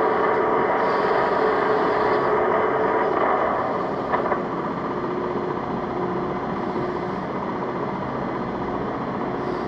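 Metal lathe running, a steady mechanical hum with a gear whine. About three seconds in it drops a little in level and pitch, with a short click about a second later.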